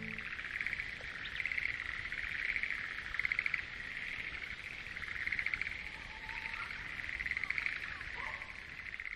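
Chorus of frogs in a flooded rice paddy calling in rapid pulsed trills, the chorus swelling and easing about once a second.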